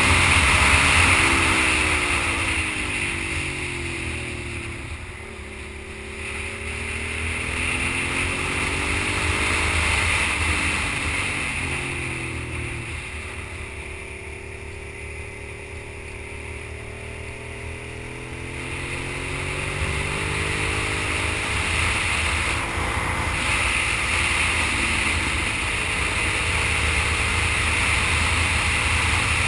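Sport motorcycle engine under way, its pitch rising and falling with the throttle through the corners. It eases off for several seconds in the middle, then picks up again. Steady wind and road noise runs underneath.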